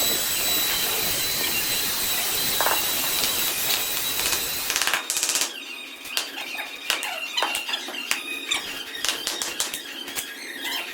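A power tool running with a steady high whine and grinding noise for about five seconds, then stopping, followed by scattered sharp clicks and short squeaks.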